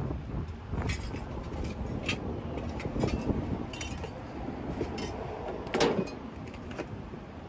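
Rummaging in a metal dumpster: scattered knocks, clinks and scrapes as picture frames and other debris are shifted about, with the loudest knock about six seconds in, over a steady low rumble.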